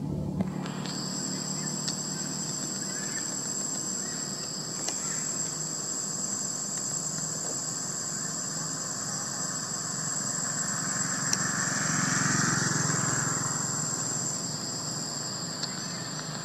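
Outdoor background noise: a steady high-pitched whine over a wide hiss, with traffic noise swelling and fading about two-thirds of the way through, as of a vehicle passing.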